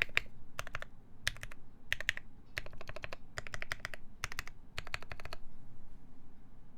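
KBD8X MKII mechanical keyboard with a brass plate, GMK keycaps and lubed ZealPC Tealios linear switches, typed on in quick bursts of keystrokes. The typing stops a little after five seconds.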